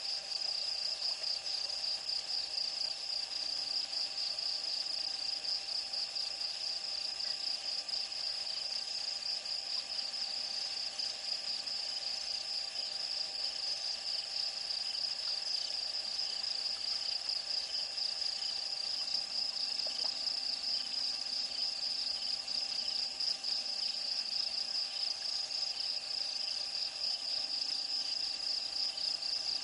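Night insects trilling in a steady, high-pitched chorus.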